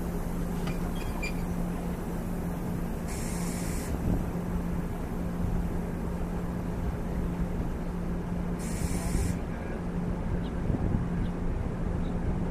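Diesel locomotive idling with a steady low hum, under a rumble of wind on the microphone; two short hisses break in, one about three seconds in and one about two thirds of the way through.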